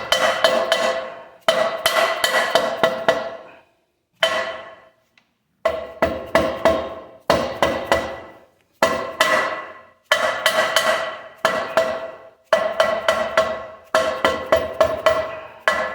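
Hammer blows on a metal part that rings. They come in quick bursts of several strikes every second or two, and each burst rings out and dies away before the next.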